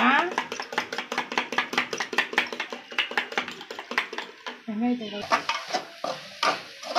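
Raw eggs being beaten by hand in a plastic tub, the utensil clicking rapidly and evenly against the sides. Near the end, a spatula scrapes and stirs chopped onions in a metal kadai.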